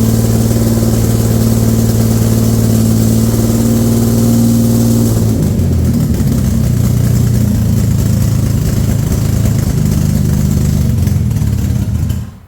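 Freshly rebuilt Infiniti G35 3.5-litre V6 running: steady for about five seconds, then uneven and ragged, and it cuts off abruptly near the end. It is stumbling at idle, which the owner puts down to a large vacuum leak.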